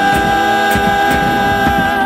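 Folk vocal group singing a long held note in harmony, with acoustic guitars and bombo drum strokes underneath.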